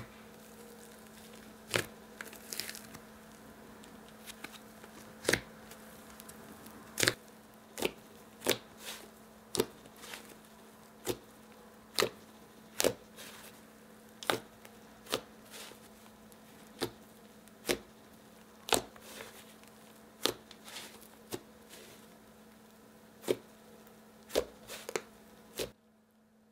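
Yellow butter slime (fluffy glue slime with soft clay worked in) being squeezed, pressed and stretched by hand, giving sharp clicking pops about once a second over a faint steady hum. The hum cuts out near the end.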